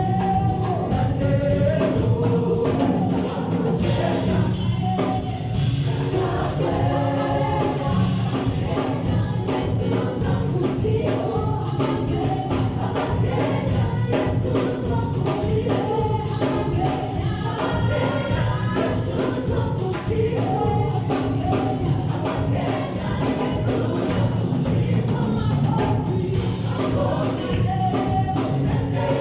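Gospel worship song with a group of voices singing together over a band, a tambourine shaking along to the beat.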